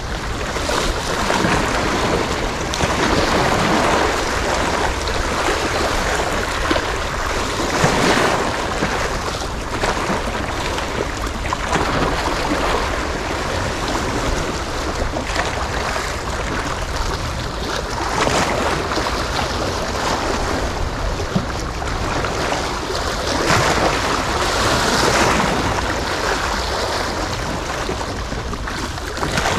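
Wind buffeting the microphone over the wash of sea waves: a steady rushing noise with a low rumble, swelling every few seconds.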